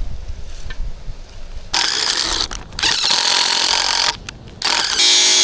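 A power tool starting up about two seconds in and running in spurts, cutting out briefly twice, with a steady whine near the end.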